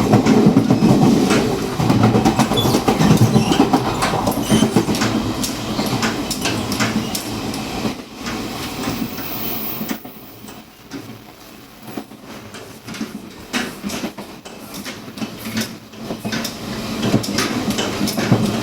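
Taiwan Railways Chu-Kuang Express passenger train heard at the gangway between two carriages while running: a loud rumble with many rapid clicks and knocks. It eases off from about ten seconds in for several seconds, then grows loud again near the end.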